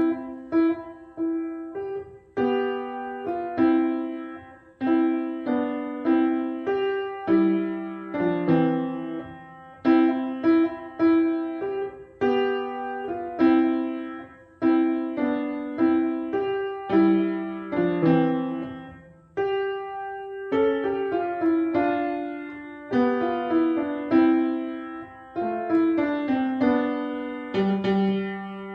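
Solo piano piece, starting at the beginning and played as a steady, repeating pattern of notes.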